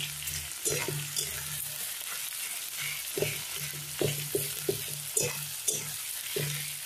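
Sliced onions sizzling in hot oil in a metal kadai while a spatula stirs them, scraping against the pan in quick irregular strokes.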